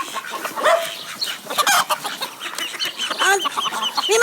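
Chickens clucking: a run of short, overlapping calls from several birds.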